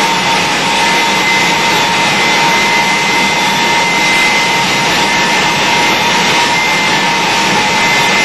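Westinghouse jet engine fitted to an American school bus, running with a loud steady roar and a steady high whine.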